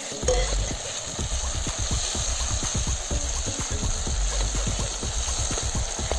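Freshly ground wet green masala sizzling in hot oil with onions in a steel pot as it is stirred with a wooden spatula: a steady hiss with many small crackles.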